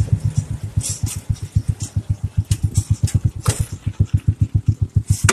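Motorcycle engine of a Philippine motorized tricycle (motorcycle with sidecar) running steadily while riding, a rapid even putter of about ten pulses a second.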